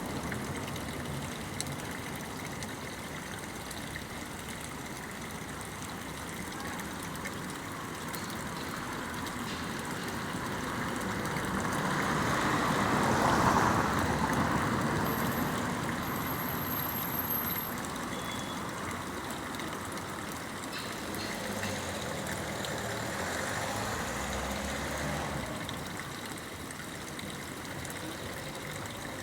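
Running water: a steady rushing noise that swells to its loudest about halfway through, then eases back.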